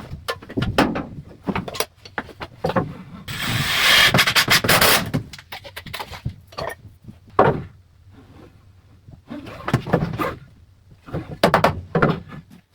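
Wooden framing boards being handled: scattered knocks and clatter of wood, with a scraping rub lasting about two seconds roughly three seconds in.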